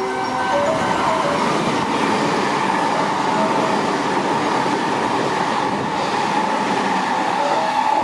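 Electric train passing through a station platform without stopping: a steady, loud rush of wheels and running gear that holds level throughout.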